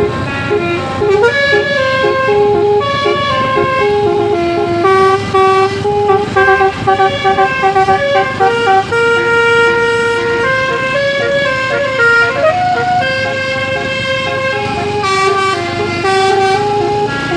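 Bus telolet Basuri musical horn playing a melody. Several horn tones sound together and step up and down from note to note, with one longer held note partway through and an upward slide a little later.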